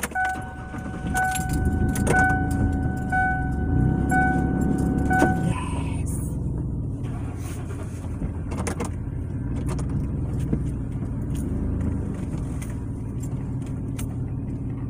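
A car's warning chime, a two-tone beep repeating about once a second, stops after about five and a half seconds. Under it the car's engine runs with a steady low rumble, with scattered clicks and rattles.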